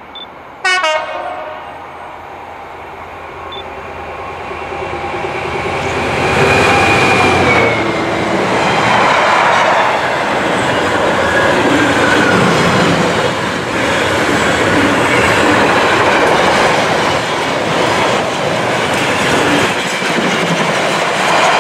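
A short horn blast from the approaching freight locomotive about a second in. The train's noise then builds as it arrives, and a long container freight train passes close by, its wagons running steadily over the rails.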